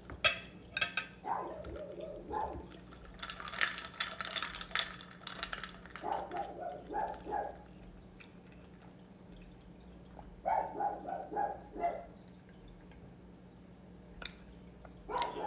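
Juice being sucked and slurped through a plastic straw from a glass, with a couple of knocks near the start and two runs of short, quickly repeated pitched sounds later on.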